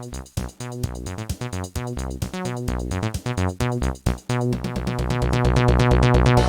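Samsung SGH-E620 polyphonic ringtone, played back in a ringtone-player emulator: an electronic tune with a drum-machine beat, bass line and synth chords, growing louder toward the end.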